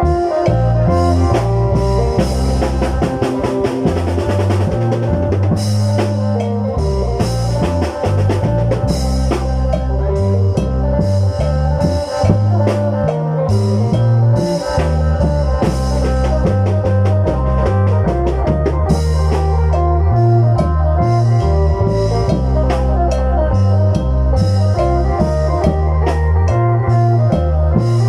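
Instrumental Isan lam phloen music: a phin (plucked Isan lute) picking a fast melody over a stepping bass line and steady drumming.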